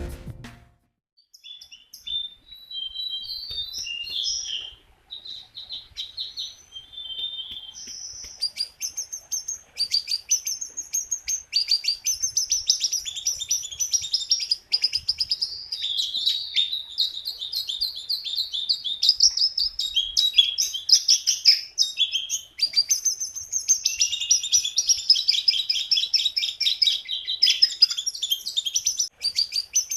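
A jongkangan songbird singing energetically: a few short scattered phrases at first, then from about eight seconds in a long, fast, unbroken run of high chirps and trills.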